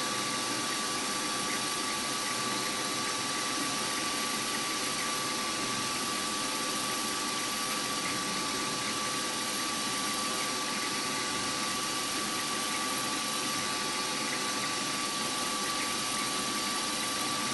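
Bench milling machine's spindle running steadily at its maximum speed, with a constant whine over a motor hum, while a small centre drill is fed into the workpiece.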